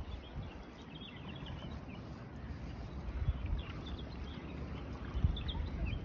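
Open-beach ambience: wind rumbling and buffeting on the microphone, with stronger gusts about three and five seconds in, and faint short high bird chirps over it.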